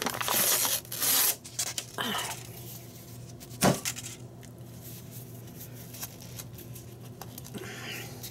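Paper packaging rustling and tearing in a few quick bursts as a crescent dough sheet is unwrapped, then one sharp knock about three and a half seconds in. After that only a low steady hum remains.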